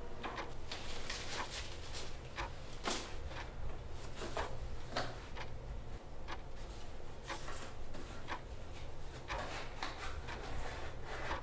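Desk handling sounds: papers rustling as they are shuffled into a desk tray, then a cardboard box being picked up and turned over, a run of short, irregular rustles and light knocks.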